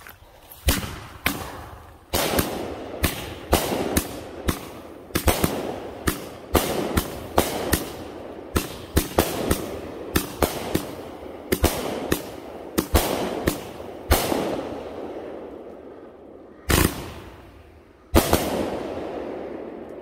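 PowerBlast 50 Shades of Silver 30-shot firework cake firing: a quick string of sharp bangs, about two a second, each trailing off in a rush. After a short lull, two last, louder bangs come about a second and a half apart near the end.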